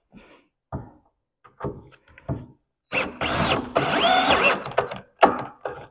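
Power drill run twice in quick succession, its motor pitch rising and falling with each trigger pull, after a few light knocks of handling. Another short, sharp noise comes near the end.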